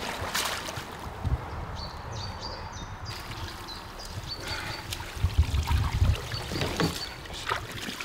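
Water splashing and sloshing as a wet fyke net is hauled by hand out of a shallow stream and into a plastic tub, with sharper splashes about a second in and again between five and seven seconds. A faint, repeated high chirping runs through the middle.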